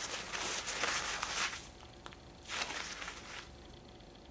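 Paper towels rustling and crinkling in the hands as an oiled foam air filter wrapped in them is squeezed to press out excess oil, in two spells: a longer one at first and a shorter one about three seconds in.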